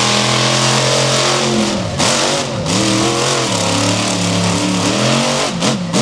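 Hot Tamale monster truck's engine running hard at high revs as it races. The pitch dips briefly about two seconds in and settles lower a little past halfway. Near the end come a few quick lifts and stabs of the throttle.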